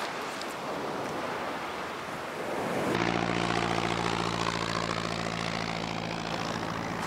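Surf washing on a shingle shore, then about three seconds in a steady engine drone with an even low hum cuts in suddenly and holds a constant pitch.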